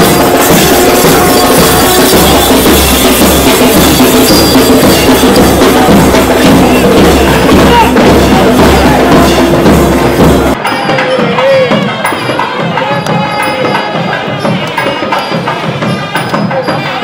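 Temple procession music: loud drumming with steady held melody tones over it. About ten seconds in it cuts abruptly to a quieter stretch with a wavering melody line and a light, regular ticking.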